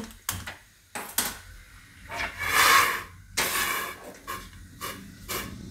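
Hand-held gas lighter clicking a few times at a stove burner, then the burner catching with a hiss of gas, twice. A couple of light metal knocks near the end as the steel steamer pan is set on the flame.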